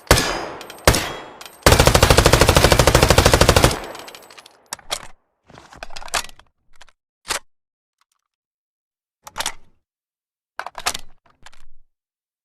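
T85 submachine gun sound effect: a single shot about a second in, then a rapid two-second burst of automatic fire. After it come several shorter, quieter sharp clicks and clanks, spaced a second or more apart.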